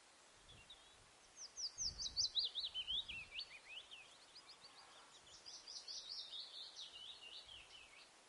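A songbird singing two fast runs of high chirps, each a quick series of short falling notes, the first about a second in and the second about halfway through, over a faint steady hiss.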